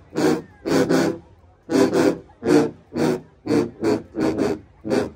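A massed section of sousaphones playing loud, short punched notes together in a stop-start rhythm, about two blasts a second.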